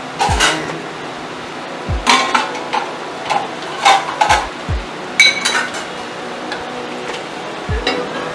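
Bowl and spatula knocking and clinking against a steel wok as diced potatoes are tipped in, a scatter of sharp clinks, some with dull thumps, mostly in the middle of the stretch.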